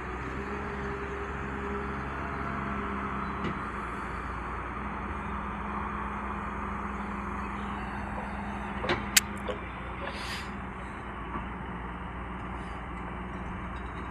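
A loader's diesel engine running steadily, with a short cluster of sharp knocks about nine seconds in.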